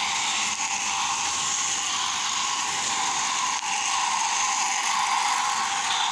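Battery-powered toy train running around a plastic track: its small motor and gears give a steady mechanical whir with a fine, rapid ticking.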